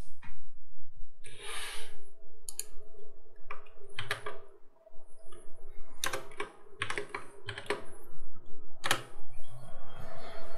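Typing on a computer keyboard: scattered key clicks, some in quick runs, over a faint steady hum.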